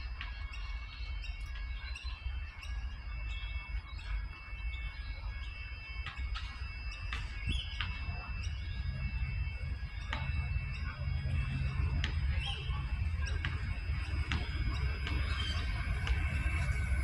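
Birds chirping and squawking over a low rumble. The rumble builds through the second half as an Adelaide Metro 4000 class electric train draws closer.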